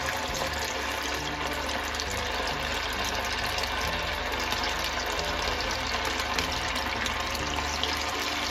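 Marinated chicken pieces deep-frying in very hot oil in a kadai: the oil sizzles and bubbles steadily with a dense, fine crackle.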